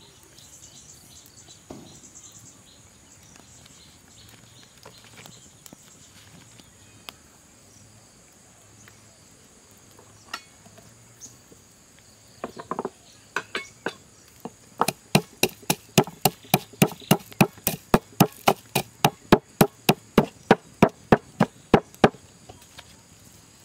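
Cleaver chopping on a wooden block: a few scattered knocks, then a fast, even run of sharp chops at about three a second that stops near the end.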